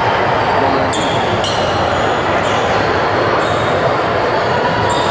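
Basketball game noise in a gym: a steady wash of crowd voices echoing in the hall, with the ball bouncing and short, high sneaker squeaks now and then.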